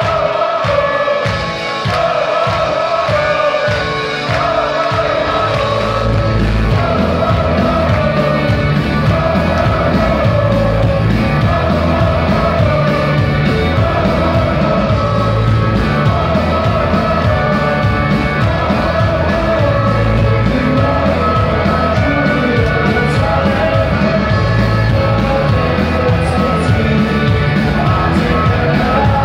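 Live indie rock band playing loud, with singing over the music. It opens with a sparse steady beat under the voices, and the bass and full band come in about five seconds in.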